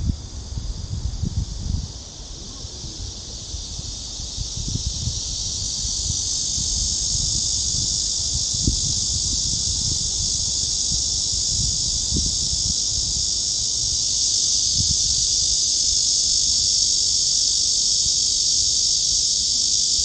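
A chorus of cicadas giving a continuous high, shrill buzz. It swells over the first several seconds and then holds loud and steady. Low thuds sound underneath, strongest in the first couple of seconds.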